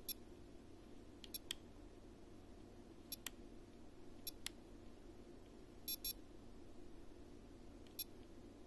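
Short electronic beeps from the Eachine PRO58 receiver module's buzzer as its menu is stepped through: about ten quick high-pitched blips, mostly in pairs, every second or two, over a faint steady hum.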